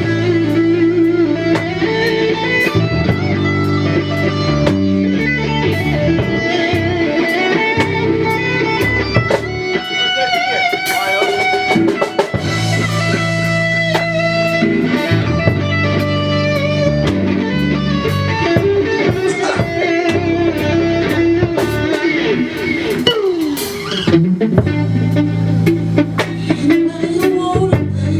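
Live band playing an instrumental passage: an electric guitar lead with wavering, bent notes over held bass and keyboard chords, with drums keeping time.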